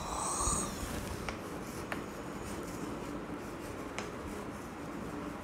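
Chalk writing on a blackboard: a faint scratching, with a few light taps of the chalk on the board.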